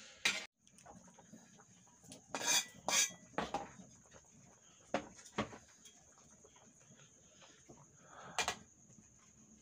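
Metal spatula clanking and scraping against an aluminium wok of fish in turmeric broth as it is stirred. The clanks are scattered, with a cluster of loud ones about two and a half to three and a half seconds in, over a faint steady high whine.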